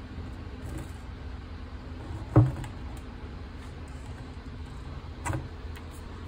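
Two dull knocks about three seconds apart, the first much louder, as the bare-metal motorcycle fuel tank is handled on the workbench, over a steady low hum.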